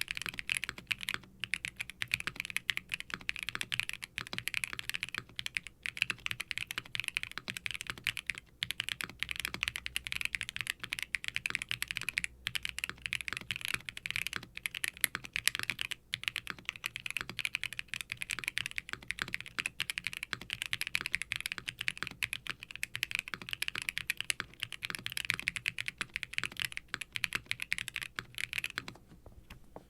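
Fast, continuous typing on a custom mechanical keyboard with Kailh Lunar linear switches, GMK ABS keycaps, an FR4 plate and a silicone case: a dense run of keystrokes with a deep, poppy bottom-out sound, pausing briefly now and then and easing off near the end.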